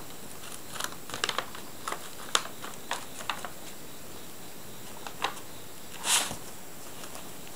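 Brown paper bag crinkling and rustling under a playing kitten's paws, with scattered light taps and scratches of paws on paper and tatami; a longer, louder crinkle comes about six seconds in.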